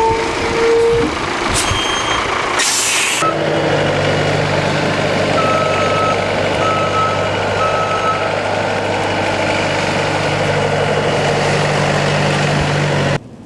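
A heavy truck with air brakes: a steady tone for about the first second, a short air-brake hiss about three seconds in, then the diesel engine running steadily while the reversing alarm beeps three times. The sound cuts off suddenly near the end.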